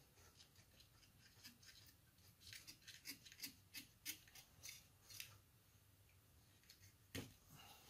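Faint, repeated snipping clicks of hand cutters working through a rubber fuel hose, coming thicker about halfway through, followed by a single knock near the end.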